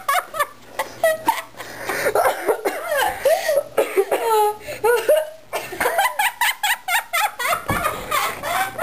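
A little boy laughing and giggling, his laughter broken again and again by short, sharp hiccups.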